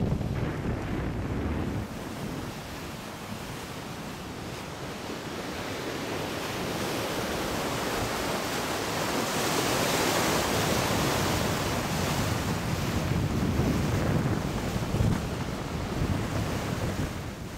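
Wind buffeting the microphone over the rush of sea water along the hull of a sailing yacht under way: a steady wash of noise that swells to its loudest and hissiest about halfway through, then eases.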